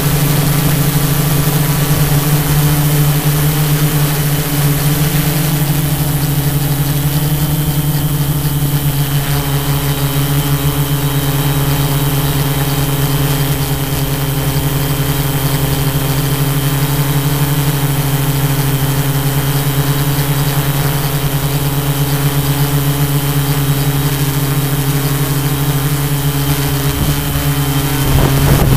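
Tarot 680 Pro hexacopter's six electric motors and propellers running in a steady, even hum in flight. Near the end the hum breaks up and grows louder as the drone comes down close to the grass.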